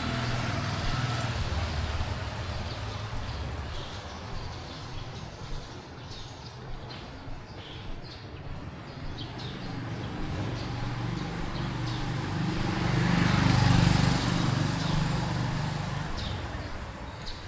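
Street traffic with a running vehicle engine; one passes close and is loudest about thirteen seconds in, then fades.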